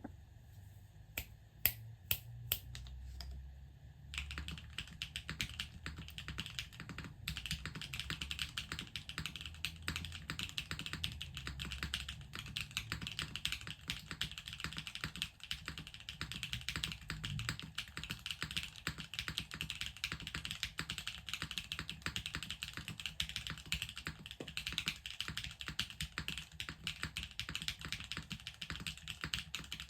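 Typing on a 60% Unikorn R2.1 mechanical keyboard with a carbon fibre plate, O-ring mount, lubed and filmed JWK Poseidon long-pole linear switches and GMK keycaps. A few separate keystrokes come first, then steady fast typing from about four seconds in.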